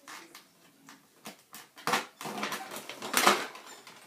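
Hands working a plastic action figure and its packaging: a run of irregular plastic clicks, rattles and rustles, the loudest about three seconds in.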